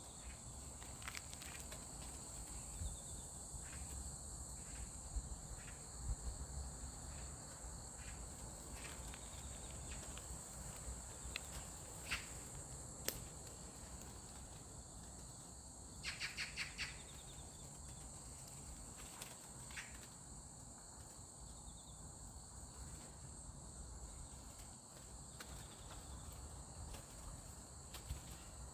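Insects trilling steadily at a high pitch, with scattered sharp clicks and a quick run of about five ticks about sixteen seconds in.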